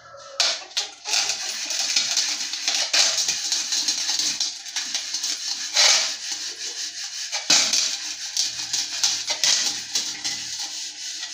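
A brass pot being scrubbed by hand with a brass-cleaning bar and water in a steel basin: a continuous scratchy rubbing of hand and cleaner on metal, with a few louder swipes.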